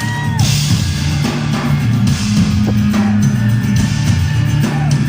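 Live metal band playing a percussion-driven instrumental, with heavy tribal-style drumming under guitar.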